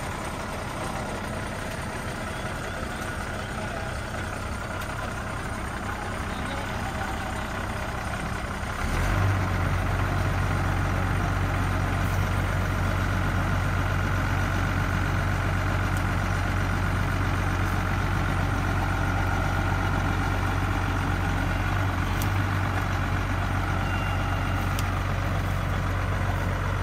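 Engine of a borewell drilling rig truck running steadily; about nine seconds in it steps up to a louder steady drone and holds there.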